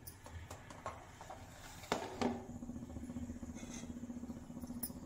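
A metal spoon knocks twice against an aluminium kadai as panch phoron is tipped into hot oil, followed by faint scattered crackles of the seeds in the oil. After the knocks a steady low hum continues.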